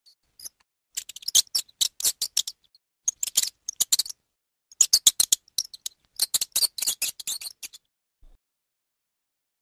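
An animal's rapid, high-pitched clicking chatter, in four runs of quick clicks with short pauses between them.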